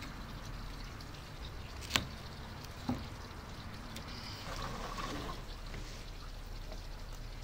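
Rubber garden hose being cut through with a knife: a sharp snap about two seconds in and a lighter knock a second later, over a steady low rumble.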